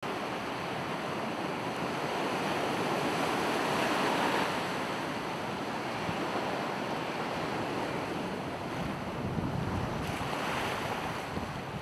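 Heavy ocean surf breaking and rushing, with wind buffeting the microphone. The roar swells about four seconds in and again near the end.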